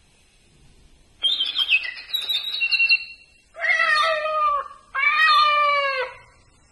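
Recorded animal sounds played by a talking reading pen from a toy's small speaker: a run of high bird-like chirps, then two cat meows, each about a second long.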